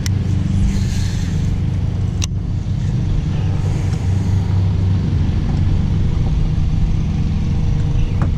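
A boat engine running steadily with a low rumble, and a single sharp click about two seconds in.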